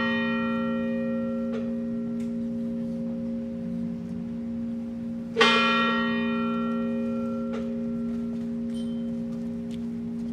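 A large bell tolling slowly for a funeral, one stroke about every six seconds. The ring of one stroke fades away, then a fresh stroke sounds about halfway through and rings on, with a faint tap about two seconds after it.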